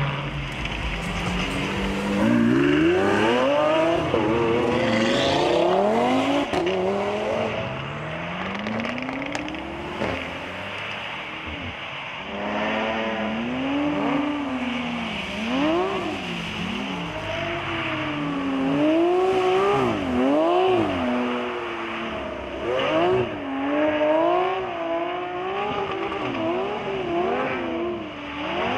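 Lamborghini Aventador SVJ's V12 engine accelerating hard, its pitch climbing in steps through several gear changes. After that it revs up and down in quick swings, about once a second, as the car drifts on a wet track.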